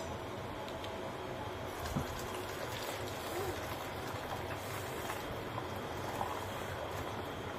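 Hot pasta cooking water poured from a steel saucepan through a mesh strainer into a pot, a steady trickling pour, with a light knock about two seconds in.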